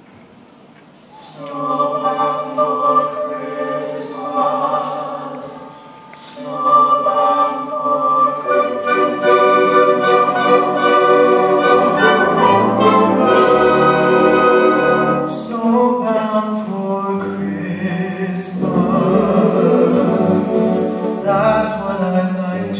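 Live orchestra playing a slow introduction in sustained chords, starting about a second in and swelling louder from about seven seconds in, with low bass notes joining.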